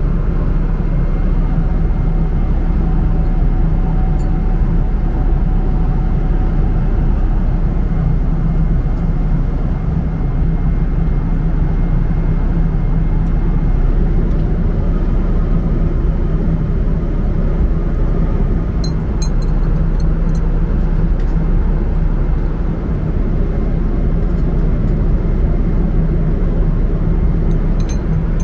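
Steady drone of a jet airliner's cabin in cruise, a deep even rumble of engine and airflow noise. A few light clicks come about two-thirds of the way through and again near the end.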